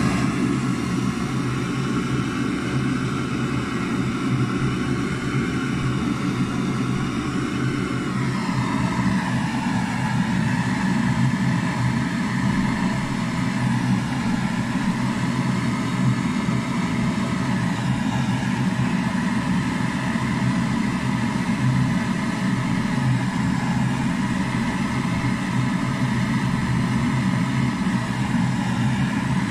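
Hand-held brass gas torch burning steadily with a rushing flame noise, its pitch gliding down about a quarter of the way through and rising again near the end as the flame changes.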